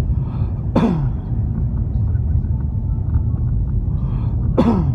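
Steady low rumble of a car driving on an icy road, heard from inside the cabin. Twice, about a second in and again near the end, a short sharp sound drops quickly in pitch.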